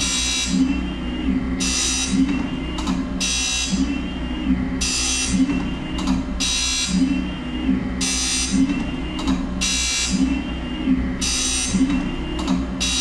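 Rekord Polar automatic chamfer grinder in auto cycle, chamfering the teeth of an HSS cold saw blade. The motor hums steadily, and a short hissing grind sounds each time the wheel meets a tooth, repeating about every one and a half seconds.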